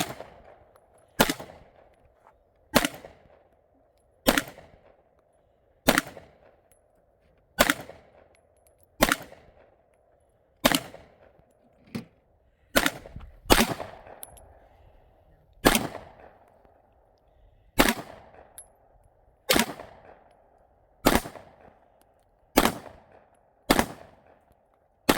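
Semi-automatic firearm fired shot after shot at a steady slow pace, about one shot every second and a half, with a few quicker shots about halfway through. Each shot has a short echoing tail.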